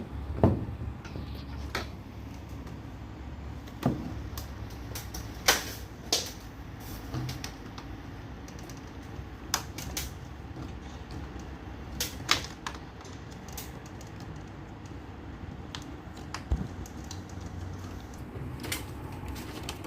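Irregular sharp clicks and knocks of tools and hard parts being handled, over a steady low hum.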